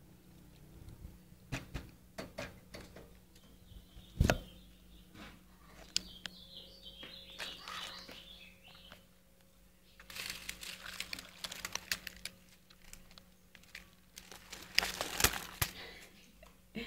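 Rustling and crackling as a handheld camera brushes through leaves and against the bars of a wire birdcage, with a sharp knock about four seconds in and louder bursts of rustling around ten and fifteen seconds. Faint high bird peeps come through between about six and nine seconds.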